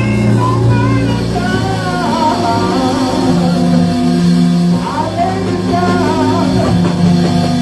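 Live worship music: a band playing sustained chords, with a voice singing wavering lines over them.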